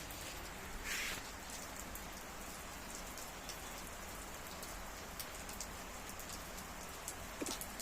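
Steady rain falling, with many scattered drop ticks and a brief louder hiss about a second in.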